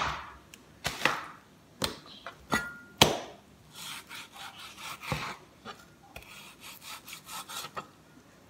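A meat cleaver working through raw chicken to take the meat off the bones: several sharp knocks of the blade on the cutting board, the loudest about three seconds in, with quieter scraping and rubbing of the blade through the meat between them.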